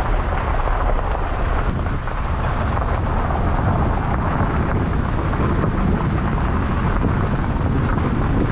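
Steady rumbling noise of a car driving slowly along a dirt track, picked up by a camera mounted on the outside of the car, with wind on the microphone.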